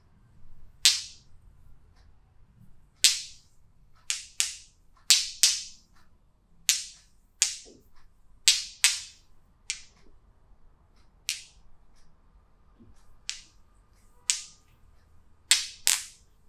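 Massage percussion: hands slapping sharply on the body, about seventeen crisp smacks at an irregular pace, several coming in quick pairs.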